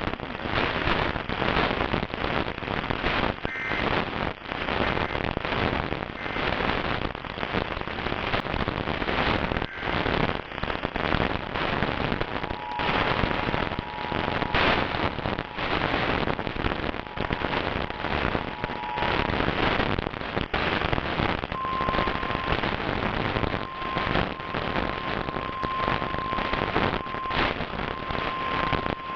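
Heavy crackling static from a weakly received radio alert broadcast. Under it, a faint two-note EAS attention signal sounds about 12 to 19 seconds in. Near the end a single steady alarm tone, typical of the NOAA weather radio warning alarm, fades in and out.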